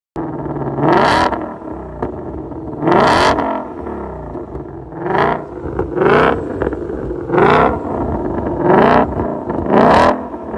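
Ford Shelby Mustang V8 exhaust, the engine revved seven times in quick blips with steady running between them, each rev rising in pitch and dropping back.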